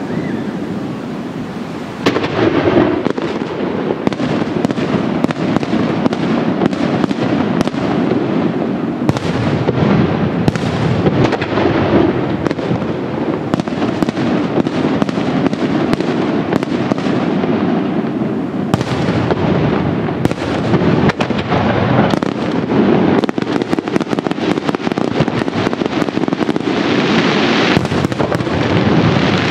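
Fireworks display: a continuous, dense barrage of bangs and crackling over a low rumble, growing denser about two seconds in.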